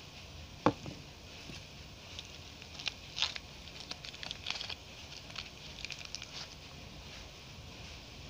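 A single sharp knock as a bar of soap is set down on the hard floor, then a plastic soap wrapper crackling and tearing in quick clicks as a Savlon bar is unwrapped.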